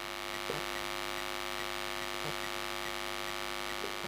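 Steady electrical mains hum with many evenly spaced overtones, with three faint short sounds of a marker on a whiteboard.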